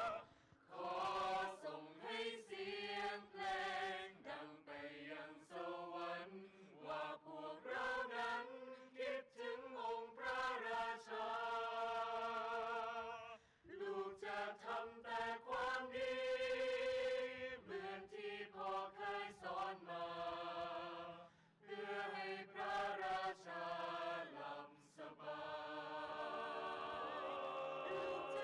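Mixed choir of men and women singing in harmony, in long held phrases with short pauses for breath between them.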